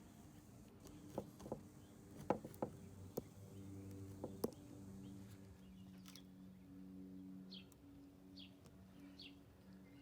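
Faint light metallic clicks and taps of steel parts being handled as the vise's shear pin and threaded sleeve are lined up, several within the first half, over a low steady hum. A few short high chirps sound in the second half.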